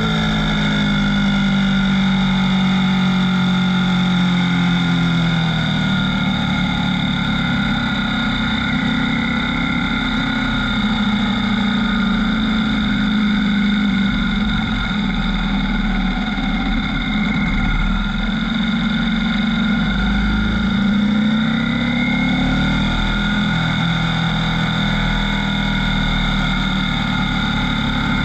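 Ducati V4 S motorcycle's V4 engine running on board at a fairly steady pace. The engine note falls over the first few seconds, then holds, with a brief rise again about twenty seconds in.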